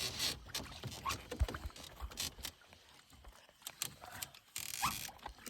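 Scattered knocks, clicks and rustling of fishing gear and the catch being handled in a canoe, with a low thump about a second and a half in and a brief rustle near the end.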